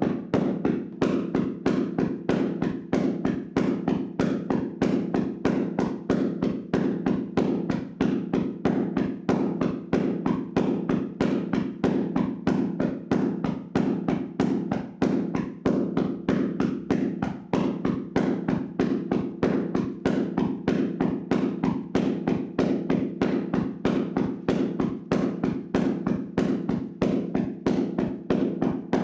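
Hands slapping and tapping on a person's body in a vigorous percussive massage: a steady, even run of dull slaps, about three a second.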